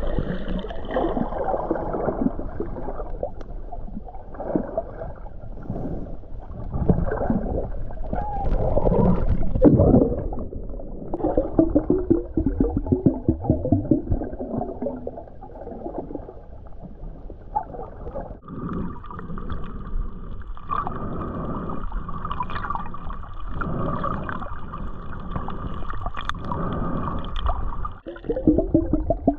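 Muffled underwater water noise, gurgling and sloshing around a camera held below the surface in shallow seagrass. From a little past halfway, a steady high whine joins it and stops shortly before the end.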